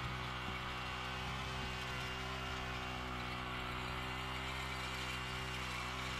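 Garden tiller's small gas engine running at a steady speed.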